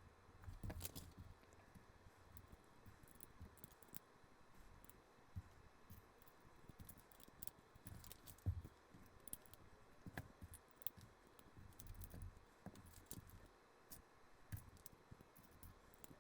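Faint, irregular clicks and rattles of plastic LEGO pieces being handled and snapped together, with a few soft thumps.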